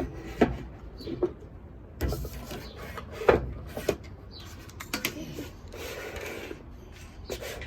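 Pirate toy being handled: scattered clicks and knocks of its parts, with a stretch of rustling near the end.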